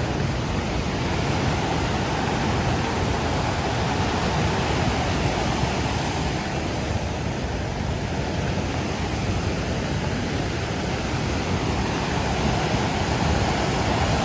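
Steady rushing of a river in flash flood, mixed with rain falling on wet pavement.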